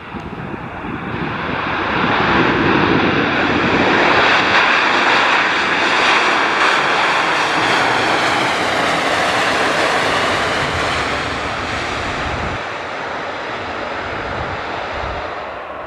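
Boeing 737-800 airliner's CFM56 jet engines running loud as the plane rolls along the runway past the listener: the engine noise grows over the first few seconds, peaks in the middle with a high whine that bends in pitch, then eases off.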